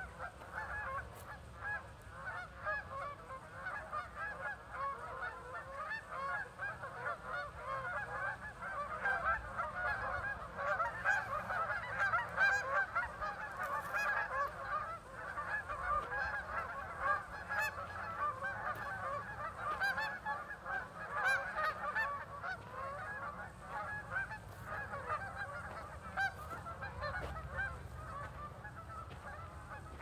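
A large flock of geese honking continuously, many calls overlapping into a dense chorus that is busiest in the middle.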